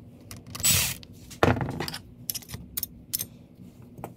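Small metal hand tools clinking and rattling as they are handled: a scraping rustle under a second in, a sharper clatter about a second and a half in, then a few light clicks.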